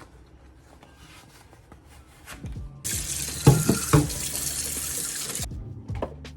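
Water tap running into a sink: it comes on sharply, runs for about two and a half seconds and is shut off, with two knocks while it runs.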